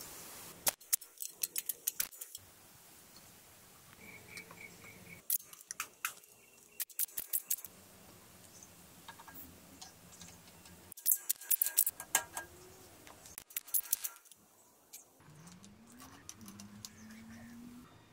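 Sharp metallic clicks and clinks of small motorcycle parts and hand tools being handled during reassembly, in several short bursts. Near the end there is a faint hum that rises in pitch.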